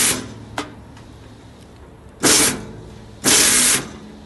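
Stainless-steel beef skin removal machine running with a steady low hum, with three loud bursts of harsh noise, each about half a second, as a piece of beef hide is drawn through it: at the start, about two seconds in and about three seconds in.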